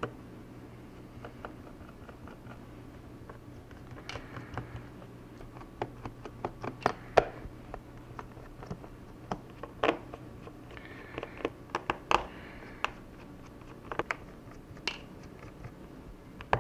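Small screwdriver backing screws out of a laptop's bottom panel: irregular sharp clicks and ticks with brief scraping, as the bit seats and turns and the loosened screws are handled.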